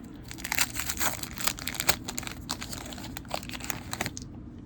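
Waxed-paper wrapper of a 1988 Donruss baseball card wax pack crinkling and tearing as it is opened by hand. It makes a dense run of crackles that stops about four seconds in.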